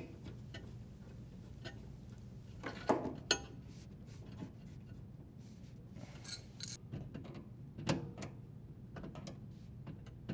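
Scattered light clicks and metallic scrapes of a water supply line fitting being threaded onto a dishwasher's water inlet valve and tightened, with a few sharper clicks about three seconds in and near eight seconds.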